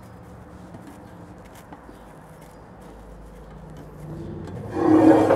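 Soft crinkling of plastic wrap pressed by hand over dough balls in a metal pan, faint small ticks. Near the end a much louder sizzle and scrape starts: caramelized onions being stirred with a wooden spoon in a cast-iron skillet.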